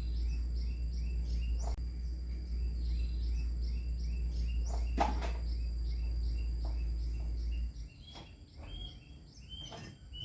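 Insects trilling in a steady high tone, with a quick chirp repeating about three times a second, over a low hum that cuts off about three-quarters of the way through. A single knock sounds about halfway.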